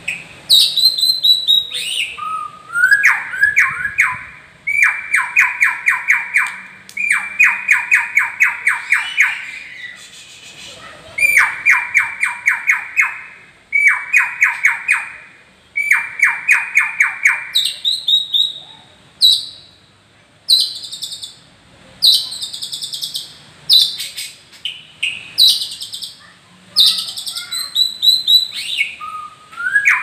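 White-rumped shama (murai batu) singing loudly: runs of rapid repeated notes, each run lasting one to two seconds, broken by short pauses, with higher whistled and chattering phrases coming more often in the second half.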